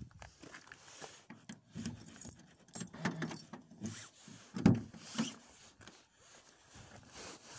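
Car keys jangling and clicking against the frosted driver's door lock of a Ford Focus, with one louder clunk of the door lock and latch a little after halfway through.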